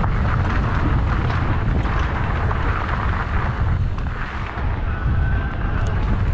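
Mountain bike descending dirt singletrack: wind buffeting the helmet-mounted microphone in a heavy rumble over the hiss of knobby tyres on dirt and stones, with the bike knocking and rattling over bumps. A brief high squeal comes about five seconds in.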